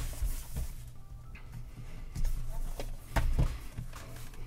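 Cardboard toy boxes handled on a tabletop: a few light knocks, taps and scrapes as a box is turned over and set down, over a steady low hum.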